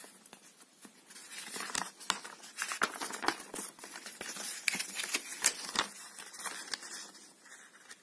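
Paper instruction leaflet rustling and crinkling as it is unfolded and its pages flipped, a quick, irregular run of crackles and light taps that thins out near the end.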